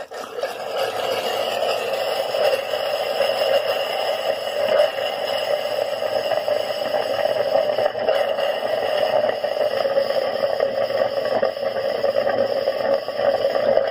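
Small air compressor blowing out an RV's water lines: a steady, fluttering rush of compressed air forced through the pipes and out an open fixture, keeping on without a break.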